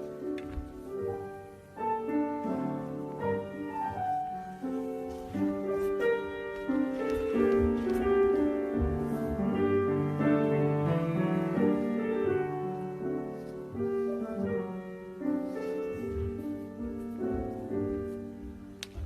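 Instrumental music led by piano, a classical-style piece of many quick notes, fading near the end.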